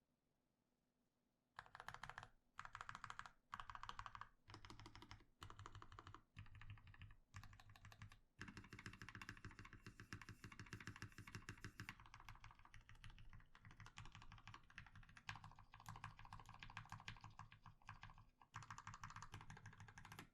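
Fast typing on a custom 60% mechanical keyboard with lubed 67.5 g Gateron Black Ink switches, a carbon fibre plate, PBT keycaps and a foam-dampened ABS case. Rapid keystrokes start about a second and a half in, come in short bursts at first, then run on as steady fast typing from about eight seconds in.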